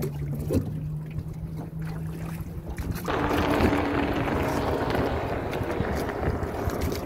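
Small aluminium boat being rowed by hand with oars: water and wind noise over a steady low hum, with the wind hiss turning suddenly louder about three seconds in.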